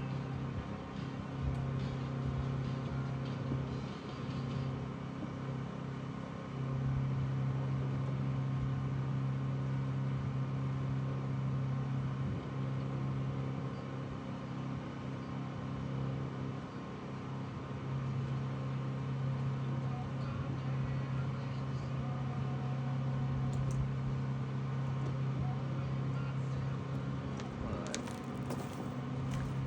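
A motor running steadily with a low hum, briefly easing off twice, with a few sharp clicks near the end.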